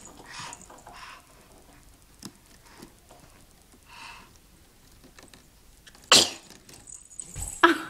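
A baby sneezing once, a sudden sharp burst about six seconds in, after soft breathy sniffs. About a second and a half later comes a low thump with a short second sound as the startled baby drops.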